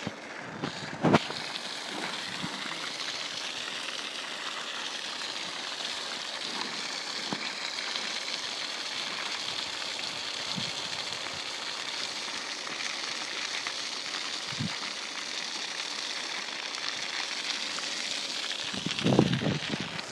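Water jetting from a hose and splashing onto pond ice in a steady hiss, as the ice is flooded to make a rink. A sharp knock comes about a second in and a few thumps near the end.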